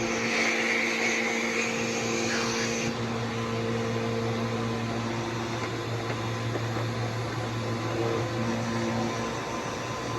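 Bissell PowerForce Helix upright vacuum cleaner running steadily. Its high rushing hiss drops away about three seconds in, leaving a steadier, lower motor hum.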